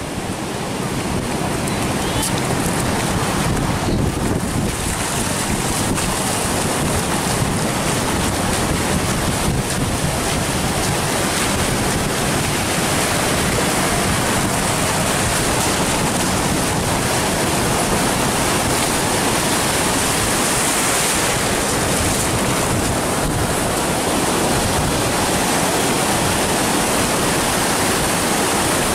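Sea surf breaking and washing up the beach in a steady rush, with wind rumbling on the microphone.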